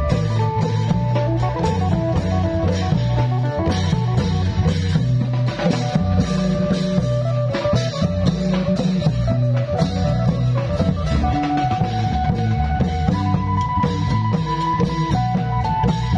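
Isan long-drum band music: a phin, the plucked Isan lute, picks a bouncy procession melody over a heavy bass line and drums.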